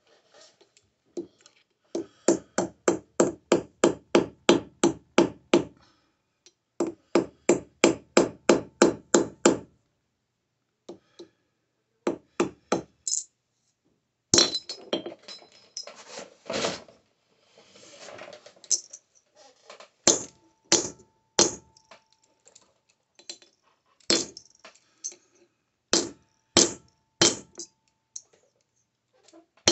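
Hammer blows on a sterling silver bar against an anvil during hand forging. Two quick runs of about four blows a second come first, then slower separate blows, some leaving a short ring.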